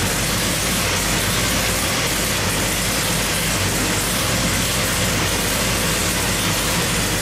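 Supercharged 540 cubic-inch big-block Chevy V8, with a Weiand roots blower and twin carburettors, running on the engine dyno at a steady speed: a constant low drone under a loud, even hiss, with no revving up or down.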